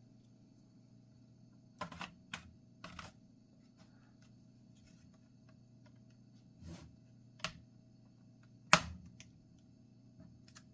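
Plastic snap clips and case parts of an HP laptop clicking as the case is pried apart, a scattering of sharp plastic clicks with the loudest about nine seconds in.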